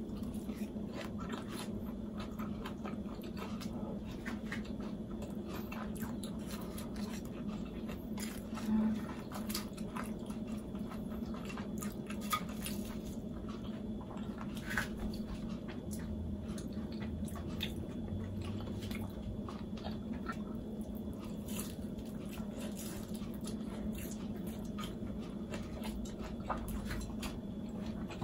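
Close-up eating sounds: biting and chewing soft pan-fried bean-sprout pancake, with scattered small clicks of wooden chopsticks against a ceramic bowl, over a steady low hum. One brief louder sound about nine seconds in.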